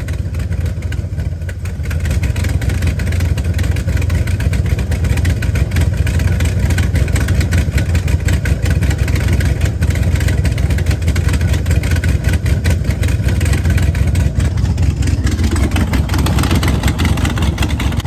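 Twin-turbo 6.0-litre V8 in a Pontiac GTO running just after a cold start following about two months parked. It gets louder about two seconds in and then holds a steady, fast-pulsing run.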